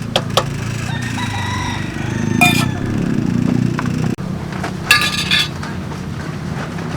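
Several sharp clinks with short ringing tones, like metal or glass utensils knocking together, over a steady low rumble.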